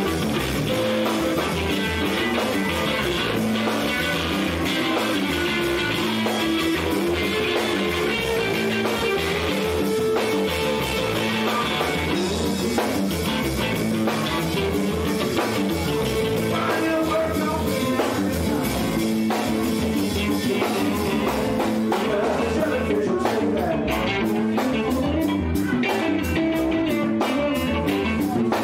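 Live band playing an instrumental passage: a Stratocaster-style electric guitar playing lead over bass and drum kit.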